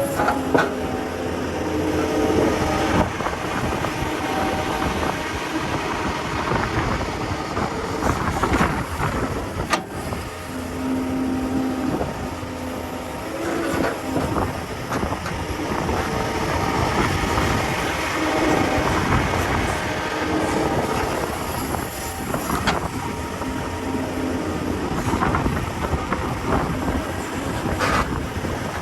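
Excavator diesel engine and hydraulics working under load, the pitch shifting as the machine moves, with a few sharp knocks and clanks along the way.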